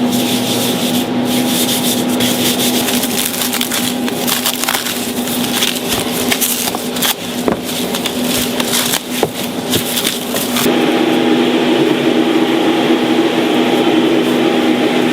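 Dense crackling and rustling handling noise over a steady mechanical hum; about eleven seconds in the crackling stops and the hum swells into a louder steady drone.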